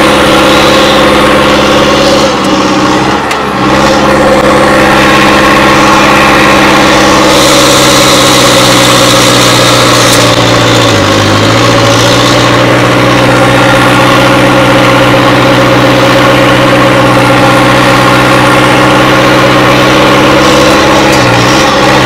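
Hindustan 60 tractor's diesel engine running loud and steady, its pitch dipping briefly three times. A hiss joins for a few seconds in the middle.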